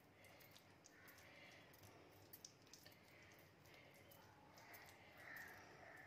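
Near silence: faint soft clicks and squishing as hands press and roll sticky grated raw-papaya laddu mixture into balls.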